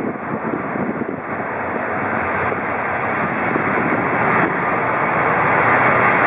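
Boeing 737-800's CFM56-7B turbofan engines running as the airliner rolls along the runway: a steady rushing jet noise that grows louder as the aircraft draws nearer.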